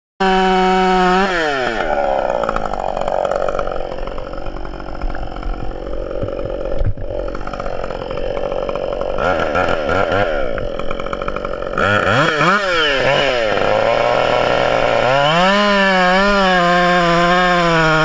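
Husqvarna two-stroke chainsaw cutting into a thick tree trunk, its engine note dropping under load for several seconds. It then revs up and down, falls to a low idle, and at about three quarters of the way through rises again to a steady high-speed run.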